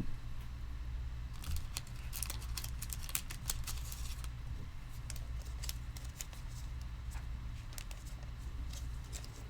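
Trading cards being handled: crisp crackling and clicking of plastic sleeves and card holders, densest for a few seconds near the start, then sparse clicks over a steady low room hum.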